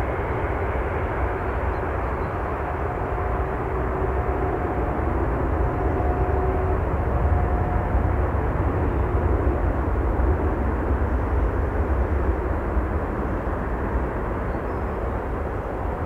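Jet airliner engine noise: a steady rumble with a faint whine holding a couple of tones from about three to seven seconds in, swelling slightly in the middle.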